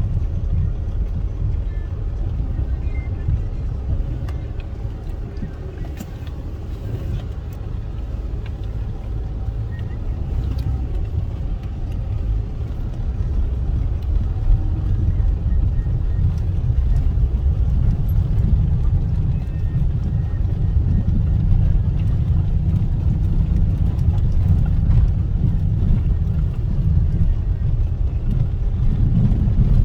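Steady low rumble of a car on the move: road and engine noise, growing somewhat louder about halfway through.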